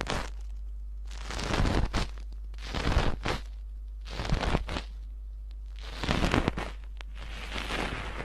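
Slime being squeezed and pressed by hand, making crackly, squelching noises in five separate bursts, about one every second and a half.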